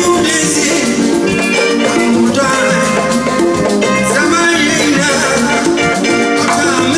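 Live highlife band playing a continuous groove, pitched instruments over drums.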